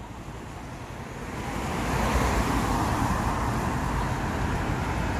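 City street traffic noise, growing louder over the first couple of seconds and then holding steady.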